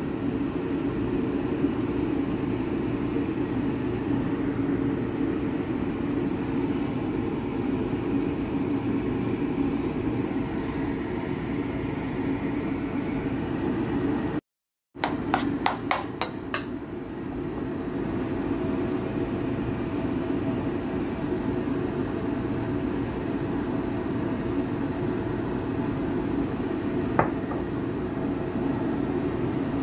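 A steady mechanical hum runs throughout. A quick run of about seven sharp clicks comes about fifteen seconds in, and one more click near the end.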